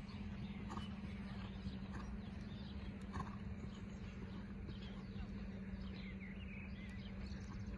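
Quiet outdoor ambience: a steady low hum over a low rumble, with a bird chirping a few times near the end.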